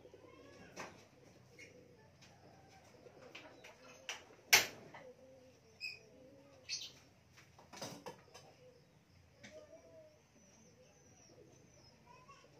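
A few sharp clicks and knocks of kitchen utensils, bowls and the gas stove, the loudest about four and a half seconds in, over faint cooing of birds.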